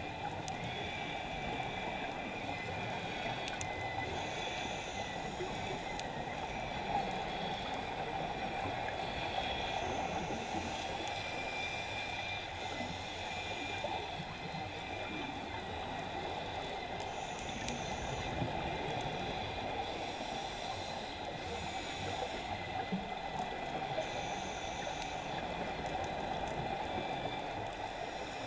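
Underwater ambience on a scuba dive: a steady rush of water noise, with a hiss from a scuba regulator and exhaust bubbles every few seconds.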